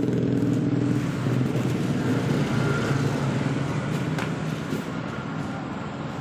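Motorcycle engine of a sidecar becak running at low, steady revs, slowly growing quieter.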